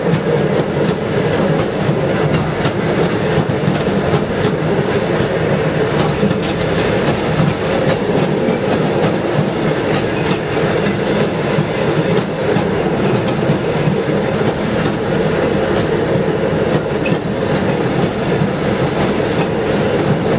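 Railroad speeder car running along the track: a steady motor and rolling noise with the steel wheels clicking over the rail joints.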